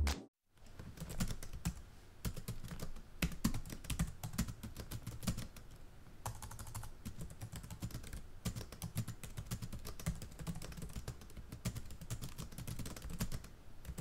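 Typing on a computer keyboard: a fast, irregular run of key clicks.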